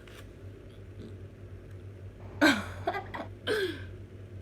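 A woman coughing in two or three short bursts a little past halfway through, over a steady low hum.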